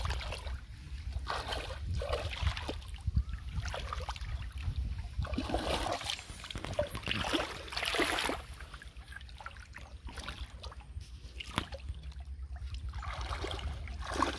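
Shallow muddy water splashing and trickling in irregular surges, as hands work through it, over a steady low rumble.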